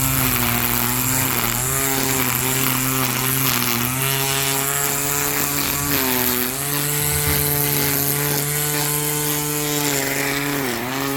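20V cordless electric string trimmer running at speed, its motor whine dipping briefly in pitch a few times as the spinning line takes load while edging.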